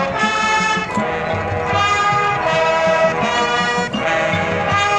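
High school marching band playing its field show: the brass sounds loud, held chords that change every second or so over a steady low beat.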